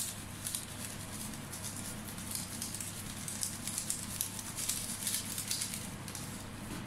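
Granulated seasoning being shaken from a small sachet, pattering in light irregular ticks onto fish in coconut milk in a steel pan, tailing off near the end, over a low steady hum.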